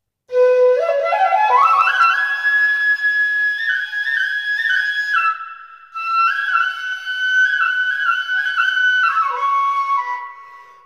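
Background music: a solo flute melody, opening with a quick rising run of notes and moving in held and stepping phrases, with a short break about halfway through.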